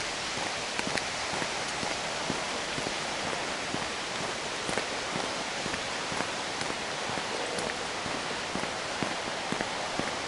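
Footsteps of someone walking, short ticks about one to three a second over a steady hiss.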